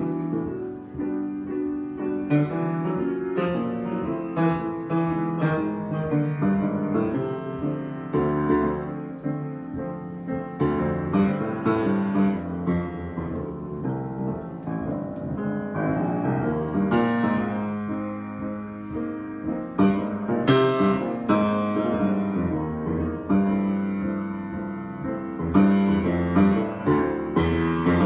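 Solo piano being improvised: chords and notes played freely, with sustained low chords under a moving upper line.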